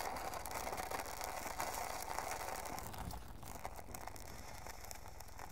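Crackling fire sound effect for a flaming logo intro, a dense mass of small crackles that fades gradually.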